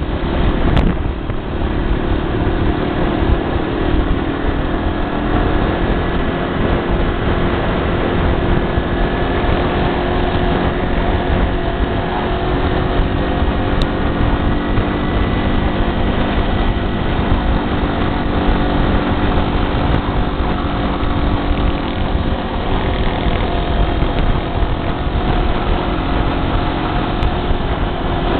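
Motorcycle engine running steadily while riding at road speed, with wind rushing over the microphone. The engine note drifts slightly up and down without sharp revs.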